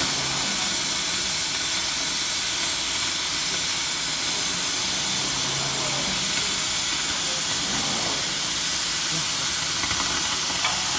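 Oxy-fuel cutting torch hissing steadily as its oxygen jet cuts through 18 mm carbon steel.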